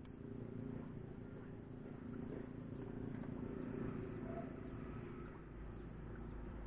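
A motor engine running steadily, its hum holding at one pitch, with a low rumble growing in the last second or so.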